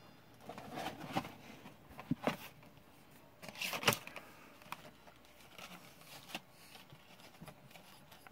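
Packaging being handled: irregular rustling and crinkling with a few sharp clicks, loudest about four seconds in, then thinning to light rustles.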